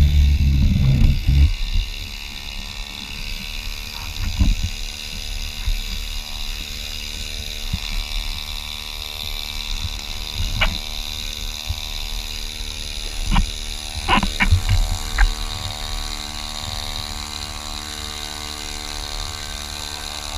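A motor running steadily at an even pitch, with a few short knocks scattered through it; a heavy low rumble at the very start dies away after about a second and a half.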